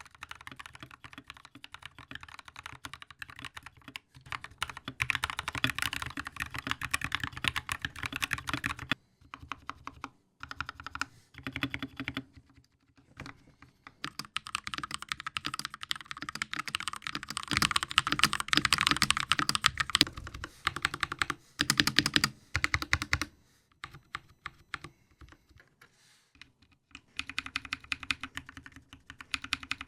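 Typing on mechanical keyboards, the Glorious GMMK 2 65% with factory-lubed Fox linear switches and an original GMMK with lubed Panda switches, in stretches of fast, even key clatter broken by a few short pauses. The middle stretch is brighter and louder than the rest.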